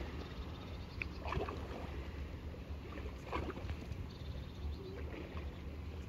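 Small river waves lapping and sloshing at the water's edge over a steady low rumble, with two clearer splashes about a second and a half and three and a half seconds in.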